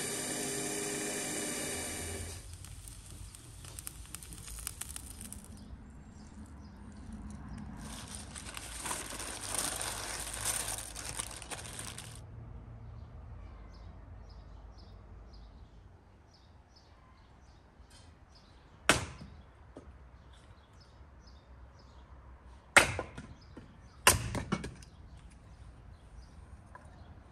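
A cordless drill whining as it bores into a beef leg bone, stopping after about two seconds, followed later by a stretch of hissing noise. Near the end, three sharp axe strikes splitting firewood on a chopping block, the last two about a second apart.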